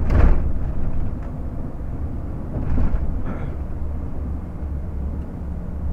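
In-cab sound of a DAF XF 460 truck's six-cylinder diesel at road speed: a steady low engine and road drone. A brief loud rush of noise comes right at the start and a smaller one about three seconds in.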